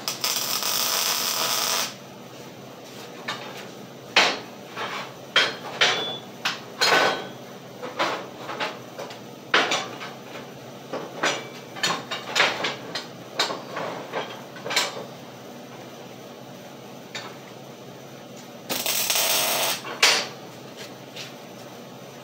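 Two short spells of arc welding on a steel frame, each a steady crackling hiss: the first about two seconds long at the start, the second about a second and a half, shortly before the end. In between comes a string of sharp metal clanks and taps.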